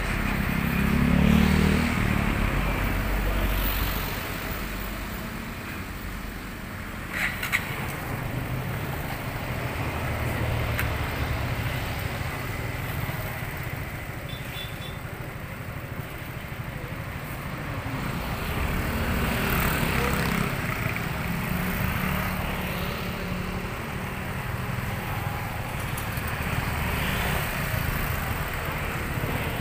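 Road traffic going by: vehicle engines swelling and fading as they pass, loudest in the first few seconds, with a couple of sharp clicks about seven seconds in.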